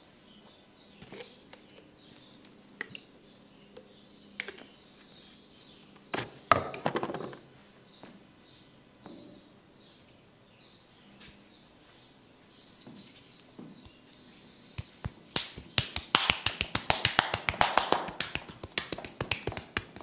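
Head-massage tapping on a person's head: a few scattered taps and a short rubbing burst, then a fast run of sharp taps, about eight a second, over the last few seconds.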